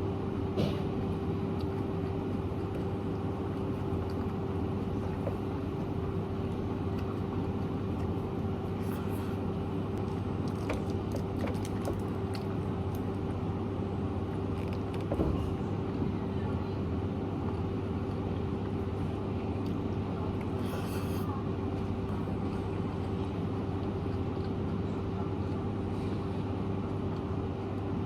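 A steady machine hum with a constant tone, broken by a few faint clicks.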